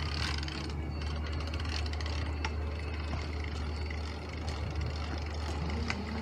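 A steady low engine rumble, with a few light clicks.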